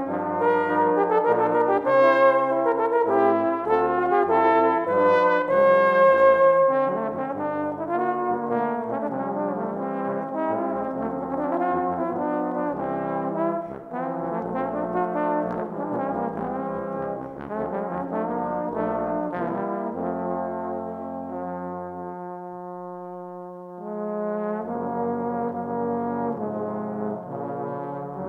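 Four overdubbed trombone parts, on tenor and bass trombones, playing a brass-ensemble piece together in close harmony. It is loudest over the first several seconds, thins to a softer passage with fewer parts, and all parts come back in fuller about four seconds before the end.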